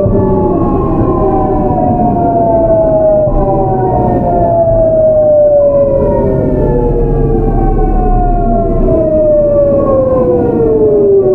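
GEC Alsthom GTO VVVF inverter and traction motors of a Seoul Metro 8000 series train whining in several tones that fall steadily in pitch as the train slows, with a new set of tones taking over about halfway through as the inverter changes its pulse mode. Wheel and running rumble lies underneath.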